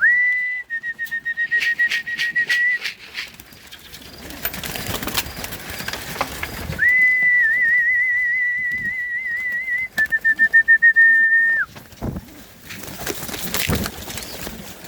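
A whistle held at one high pitch, blown twice: a short call at the start, then a longer one that wavers and ends in quick pulses, the pigeon keeper's call to feed. Pigeons coo underneath, with scattered sharp clicks.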